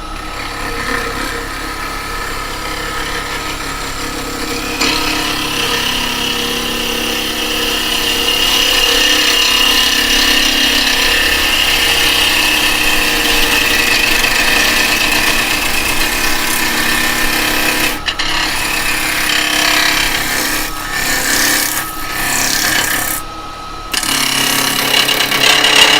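Carbide chisel cutting a freshly cut cherry blank spinning on an Axminster wood lathe, with a steady scraping over the lathe's motor hum as the surface is smoothed. The cutting noise grows louder about five seconds in and breaks off briefly twice near the end as the tool leaves the wood.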